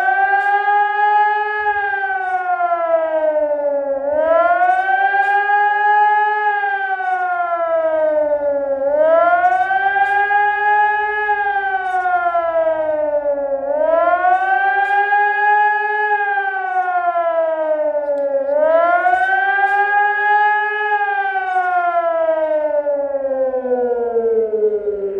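Hörmann ECI-DT 1200 electronic warning siren sounding the rising-and-falling wail of a test alarm, about one swell every five seconds. Near the end it does not rise again and keeps sliding down in pitch as the signal winds down.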